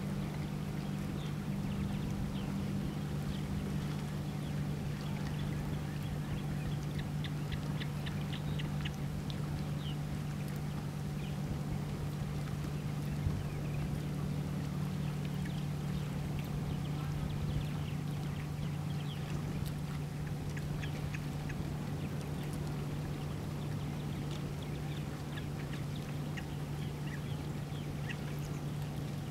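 Osprey chicks giving short, high chirps in scattered clusters, over a steady low hum.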